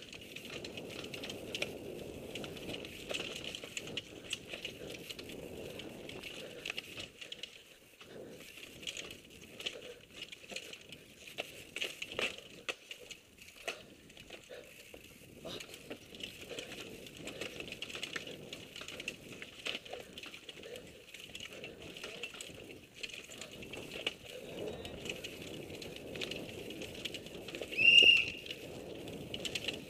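Mountain bike descending a rough dirt trail at race speed: tyres crunching over dirt, roots and rocks, with the bike rattling and clicking over the bumps throughout. Near the end a short, loud high-pitched squeal.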